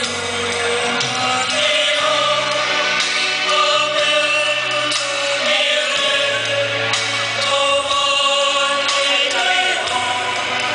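Music with a choir singing sustained notes over a low bass line.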